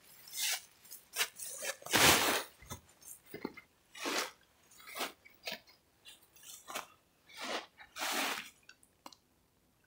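Footsteps crunching and rustling through dry fallen leaves: a dozen or so short, irregular crunches about a second apart, with quiet between them.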